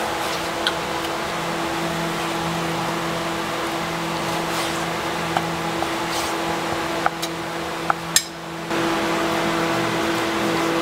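A knife slicing raw goat meat on a wooden cutting board, the blade giving a few sharp knocks as it meets the board, over a steady machine hum like a running fan. The hum drops out for about half a second around eight seconds in.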